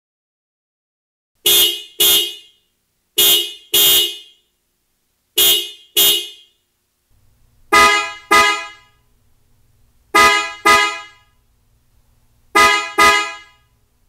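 Car horn honked in three pairs of short double blasts, first with the 2021 Toyota RAV4's factory horns. Then come three more pairs from the PIAA Superior Bass dual-tone horns (330 Hz and 400 Hz) that replaced them, fuller in tone, over a faint low hum.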